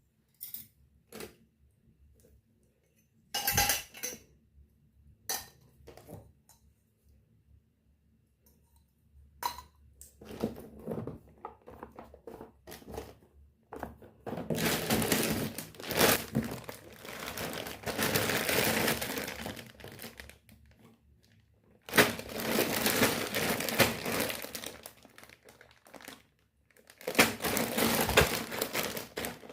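Scattered light taps and clinks of small metal toy kitchenware, then long stretches of plastic packaging being crinkled and torn open, starting about halfway through.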